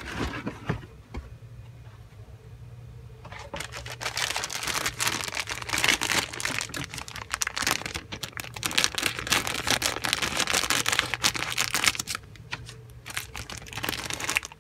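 Clear plastic bags around model-kit sprues crinkling and crackling as they are handled, busiest from about four seconds in to about twelve seconds.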